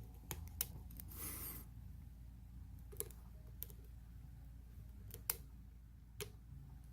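Lock picking: a pick and tension wrench working the pins of a security-pinned challenge lock, giving a few faint, sharp, irregular clicks and one short scraping rasp about a second in.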